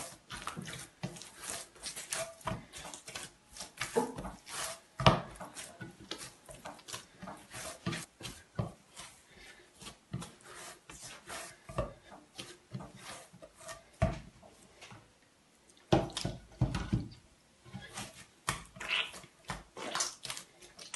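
Hands kneading a stiff coarse-semolina and flour bread dough in a glazed earthenware kneading dish: irregular pressing, slapping and rubbing thumps, with the strongest thump about five seconds in.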